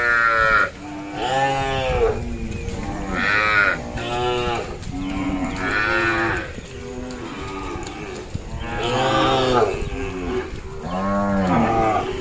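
A herd of white zebu-type cattle mooing, loud overlapping calls following one another about once a second.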